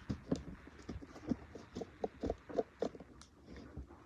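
Light, irregular taps and scrapes of a hand working over a plastic makeup palette on a table, several small knocks a second.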